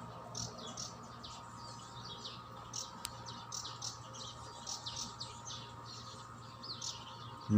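Small birds chirping: many short, high chirps in quick succession, over a faint steady hum.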